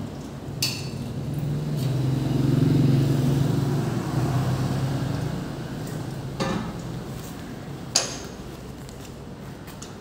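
Sharp metallic clinks of tools or brake parts, once near the start and again near the end, with a duller knock in between. Under them a steady low hum swells for a few seconds and fades.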